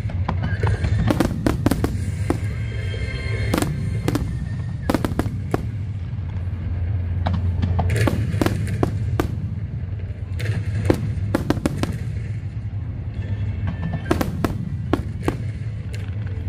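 Aerial fireworks bursting: a rapid, irregular run of sharp bangs and crackles over a continuous low rumble.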